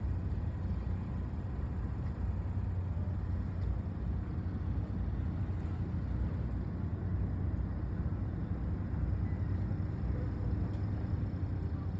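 Steady low engine rumble with a constant even hum, no change in pitch or level.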